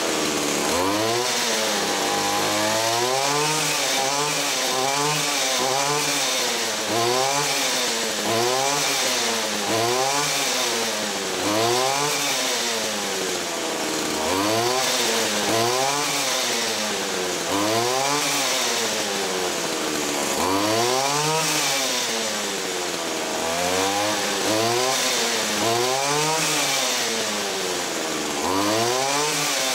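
Stihl FS 75 trimmer's small two-stroke engine running on stale gasoline, its speed rising and falling over and over, about once every second and a half. It is running badly on the bad fuel.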